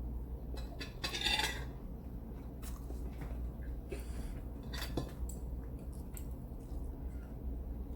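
Cutlery clinking and scraping on a plate during a meal, with a louder scrape about a second in and scattered light clicks after.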